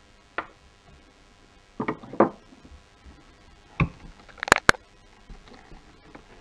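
A few scattered clicks and knocks from a removed Mercedes W212 steering wheel and its plastic parts being handled and turned over against a wooden tabletop. The two sharpest clicks, the loudest, come close together a little past the middle.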